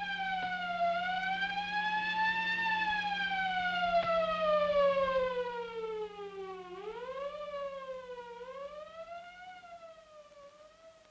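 Ambulance siren wailing, its pitch sliding slowly up and down, then falling for several seconds before a few quicker rises and falls as it fades away.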